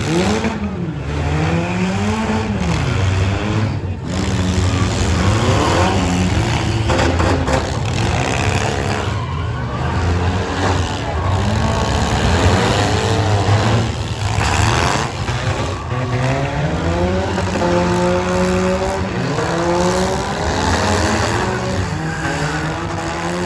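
Several four-cylinder demolition-derby cars' engines revving up and down over and over, their pitches rising and falling and overlapping over a steady low rumble.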